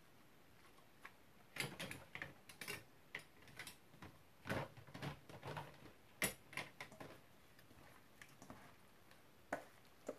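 Cabbage being mixed with kimchi sauce in a bowl: irregular soft wet squishes and light clicks, in two busy bursts with a few single knocks near the end.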